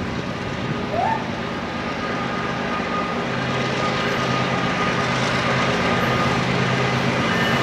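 Approaching BNSF freight train's diesel-electric locomotives, a steady low engine drone that grows stronger about three seconds in as the train nears. A brief rising chirp sounds about a second in.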